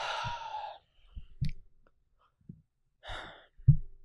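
A man sighs out loud into a close microphone. About three seconds in he lets out another short breath, followed by a brief low thump, the loudest sound, with a few faint clicks in between.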